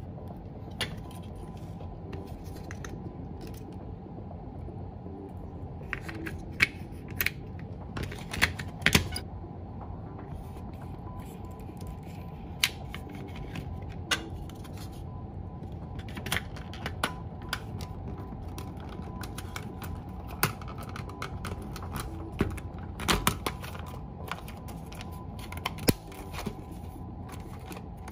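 Irregular plastic clicks and taps from a Soviet reloadable Super 8 film cassette being handled as its film is wound onto the spool and the shell halves are fitted together, with a few louder clicks about eight and twenty-three seconds in.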